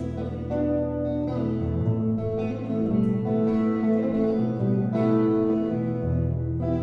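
Electric guitar playing an instrumental passage with no vocals: picked melody notes ring over a held low bass note, which changes about two seconds in and again near six seconds.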